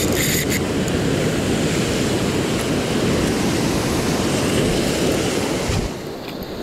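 Sea waves breaking and washing over shoreline rocks, a dense steady rush mixed with wind buffeting the microphone; it eases slightly about six seconds in.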